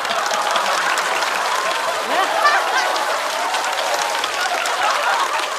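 Studio audience applauding steadily in response to a punchline, with scattered voices in the crowd.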